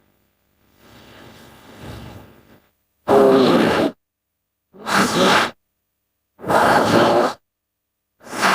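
Invented orca–shark creature calls: a faint breathy rasp, then a run of short pitched calls, each under a second, with a wavering pitch and dead silence between them, the last starting near the end.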